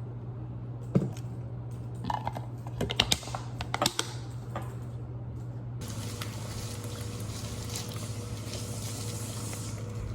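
Light clicks and knocks of kitchenware being handled, then, about six seconds in, a kitchen tap starts running in a steady stream into the sink, over a low steady hum.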